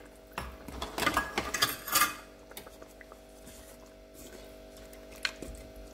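Metal kitchenware clinking and scraping against a pressure cooker pot, mostly in a cluster between about half a second and two seconds in, over a steady hum.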